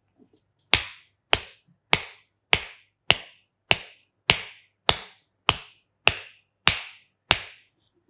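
Rhythmic hand slaps on the sole of a foot during a massage: twelve sharp, even smacks about 0.6 s apart, each with a short ringing tail.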